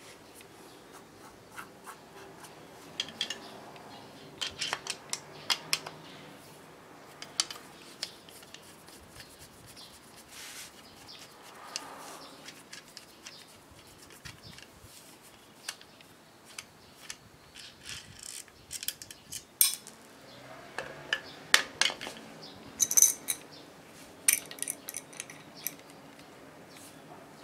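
Scattered metallic clicks and clinks as hand tools are handled against a keyless drill chuck: a screwdriver shaft through its jaws, then an adjustable wrench on it. The clicks come in irregular clusters, busiest near the end.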